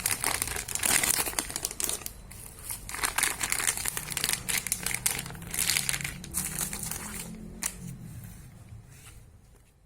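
Plastic parcel packaging being crinkled and pulled open by hand, in irregular crackling bursts that die away near the end.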